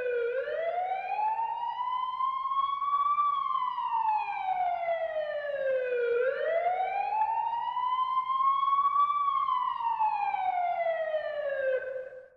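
Police siren sounding a slow wail: the pitch rises for about three seconds and falls for about three, twice over, then cuts off near the end.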